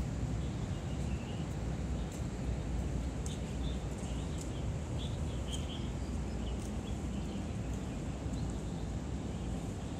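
Outdoor ambient noise: a steady low rumble, with faint short chirps and a few light clicks in the middle seconds.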